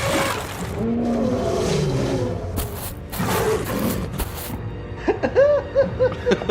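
Cartoon soundtrack: background music with sound effects layered over it. A growl-like noise comes first, then a few short, sharp noisy blasts, and from about five seconds in a run of quick, bouncy rising-and-falling tones.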